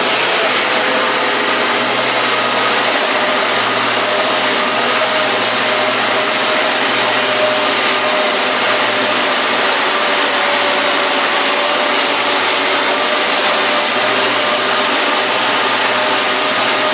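Belarus 920 tractor's four-cylinder diesel engine running steadily under load while pulling a plough, with a steady whine over it.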